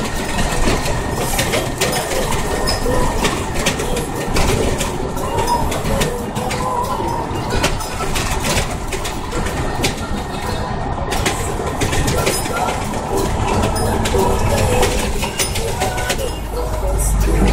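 Cab noise of a truck driving on a very rough dirt road: a steady engine drone under constant rattling and knocking as the cab shakes over the ruts. A heavy low rumble builds near the end as an oncoming tanker truck comes alongside.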